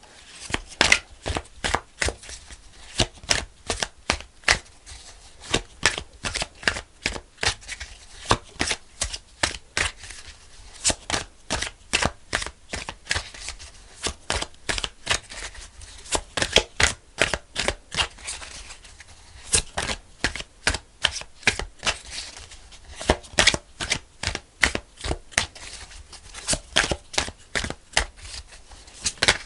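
A tarot deck being shuffled by hand: a steady run of crisp card slaps and flicks, a few a second.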